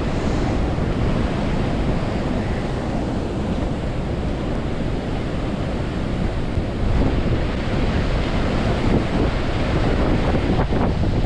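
Strong wind buffeting the microphone: a steady low rumble with hiss above it, with no let-up.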